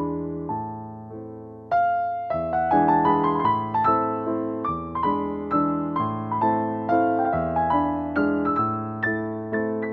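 Background piano music: a gentle melody of struck notes over chords, with a louder chord about 1.7 seconds in and notes following at about two a second.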